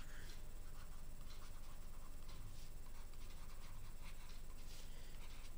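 Faint scratching of a stylus writing strokes on a pen tablet, over a low steady hum.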